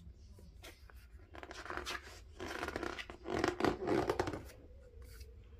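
Page of a hardcover picture book being lifted and turned by hand: paper rustling and sliding, loudest about three and a half seconds in.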